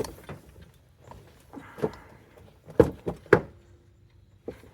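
Sharp knocks and clanks of metal parts and hand tools being handled as a new water pump is fitted to the engine: one at the start, one nearly two seconds in, and two loud ones about half a second apart near three seconds in.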